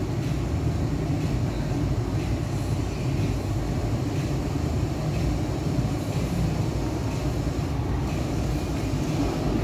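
Steady rush of the climate-control blower fan inside the cabin of a 2016 Holden Commodore, with the 3.0-litre V6 engine idling underneath.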